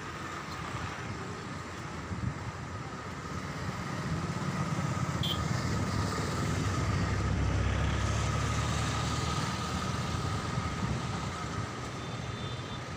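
Road traffic noise, with a vehicle's low rumble swelling about four seconds in and fading again a few seconds later.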